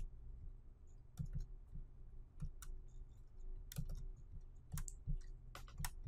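Computer mouse clicking: about ten short clicks, several in quick double-click pairs, over a faint low steady hum.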